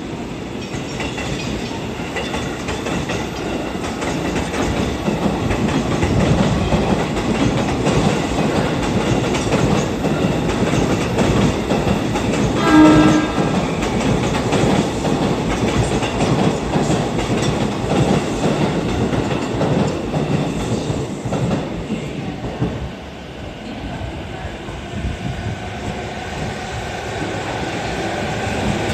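Train and station rail noise, with a single short blast of the E233-series electric train's horn about halfway through, the signal that it is about to move again. Near the end, the traction motors' whine rises in pitch as the train starts to pull away.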